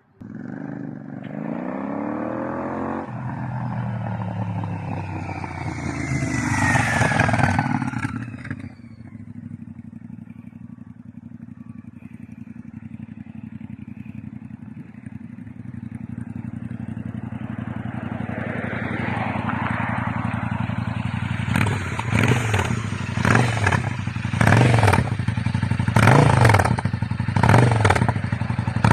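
Royal Enfield Interceptor 650's parallel-twin engine through a TEC full stainless steel exhaust. It revs up to a peak about seven seconds in and drops back to a steady idle, then, in the last seven seconds, gives a series of sharp throttle blips.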